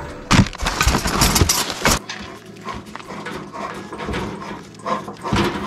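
Cast-iron skillet knocking and clattering on the metal grate of a propane camp stove as it is set in place. A quick run of knocks fills the first two seconds, followed by fainter scattered taps and a louder knock near the end.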